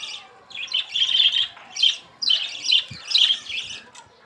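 Pet parrots squawking: a run of short, harsh, high calls with brief gaps between them.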